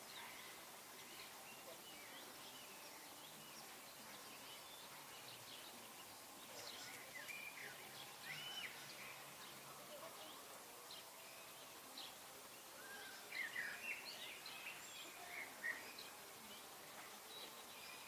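Faint background hiss with scattered short bird chirps and whistles, bunched a little before the middle and again about three quarters of the way through.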